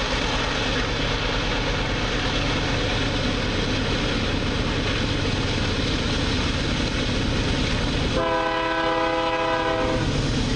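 A GE AC44i diesel-electric locomotive approaches with a steady rumble. It sounds its horn once, a held chord of about two seconds, near the end.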